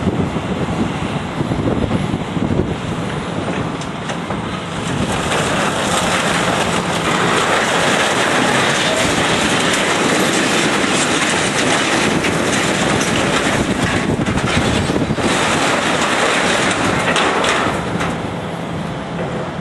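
Heavy demolition machinery working structural steel: a dense, continuous grinding and scraping of metal with scattered clanks, easing off slightly near the end.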